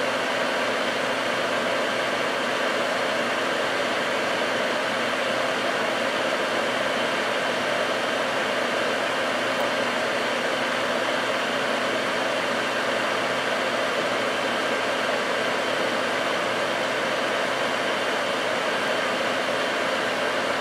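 Fume extractor's fan running steadily: an even rush of air with a faint hum.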